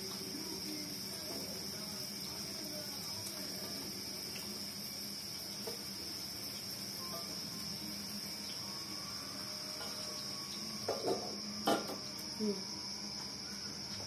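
Crickets chirring in one steady, unbroken high note, with a few short metallic clatters of cooking utensils on the wok and metal plate near the end.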